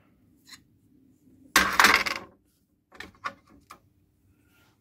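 Steel workshop parts clattering against a checker-plate bench top: one loud metallic clatter about a second and a half in, lasting under a second, then a few light metal clicks.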